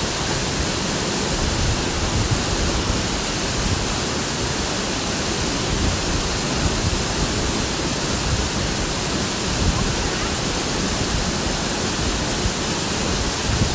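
Waterfall pouring steadily: a loud, even rush of falling water with no letup.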